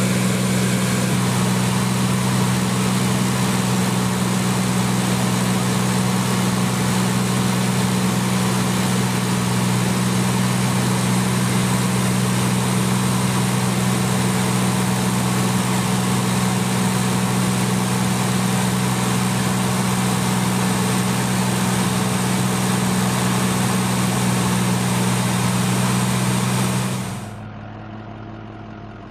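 Steady drone of an aircraft engine in flight, with a strong low hum and a rushing hiss above it. It falls away sharply near the end, leaving a much quieter background.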